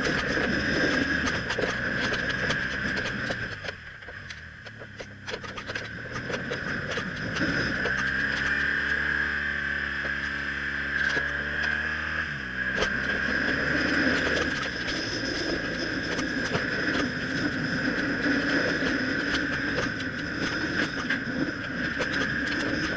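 BMW R1200CL motorcycle's boxer-twin engine running while riding, with wind noise over the camera. Between about eight and twelve seconds in, the engine note shifts in pitch and then settles back.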